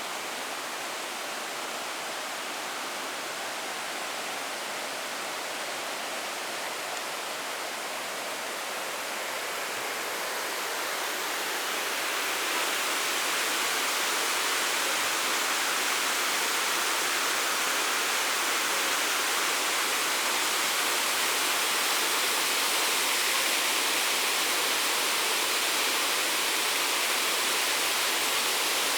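Waterfall rushing in a steady, even roar of falling water, growing louder about a third of the way through and then holding steady.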